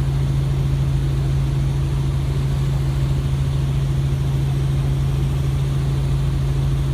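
Helicopter running steadily, a constant low hum with a fast low beat beneath it.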